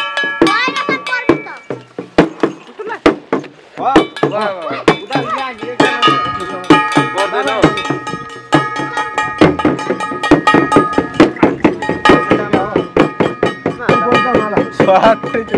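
A shaman's double-headed frame drum (dhyangro) struck again and again in quick, uneven strokes, with metal bells ringing over it and voices chanting at times.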